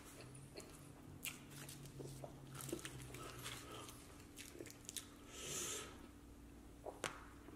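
A person chewing a mouthful of burger close to the microphone: quiet wet chewing with scattered small mouth clicks and smacks, and a soft breathy hiss about five and a half seconds in.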